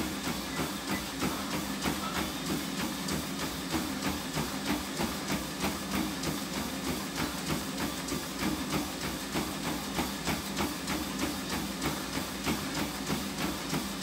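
Running footfalls on a motorized treadmill belt, a regular thud about three times a second, over the steady hum of the treadmill's motor and belt.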